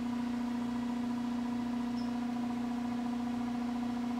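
Steady mechanical hum, a constant low buzzing drone with no change in pitch or level, like a small motor or fan running. One faint, short high chirp about two seconds in.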